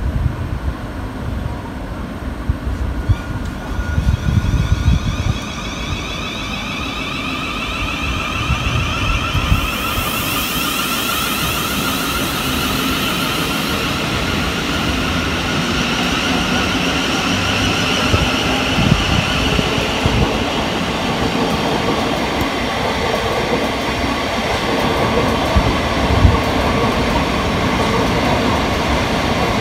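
Thameslink Class 700 electric multiple unit pulling away and passing close by. Its traction motors whine in several tones that rise in pitch for about fifteen seconds as it gathers speed and then hold steady, over a wheel rumble with occasional thumps. A high hiss sounds for a few seconds about ten seconds in.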